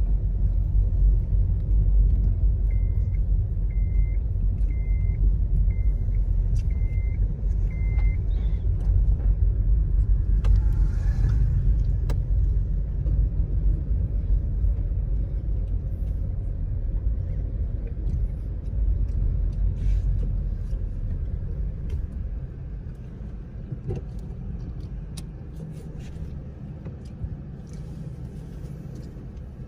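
Low, steady rumble of a moving car heard from inside the cabin, fading toward the end. Early on, six short high beeps sound about once a second.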